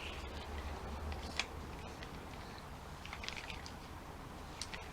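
Faint handling noise from a plastic screwdriver rack and the screwdrivers in it: a few light, scattered clicks.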